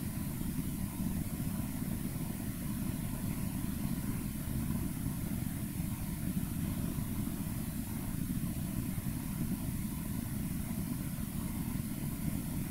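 Steady low rumble of room noise with a faint high hiss, unchanging throughout.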